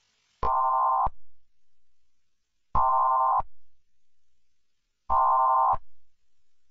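Three short bursts of Emergency Alert System-style data tones, the end-of-message signal that closes an alert. The bursts are identical and electronic, each about two-thirds of a second long and a little over two seconds apart, each trailing off in a fainter, fading tail.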